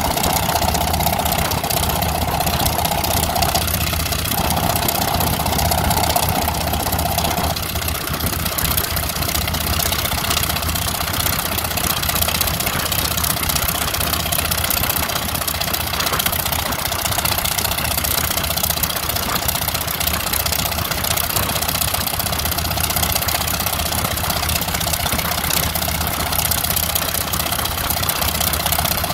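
Mi-1M helicopter's Ivchenko AI-26V seven-cylinder radial piston engine running steadily after start-up. A separate higher steady hum runs alongside it, breaks briefly about four seconds in, and stops about seven and a half seconds in.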